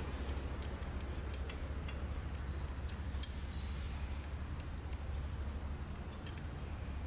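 Light clicks and taps of precision measuring gauges being handled, over a steady low hum. About three seconds in there is a sharper click and a brief high chirp.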